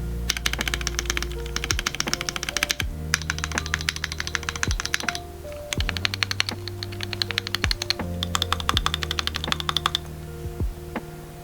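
Fast typing on a mechanical keyboard with lubed, broken-in Gateron Milky Yellow linear switches, in four quick runs of keystrokes with short pauses between, over background music with a bass beat.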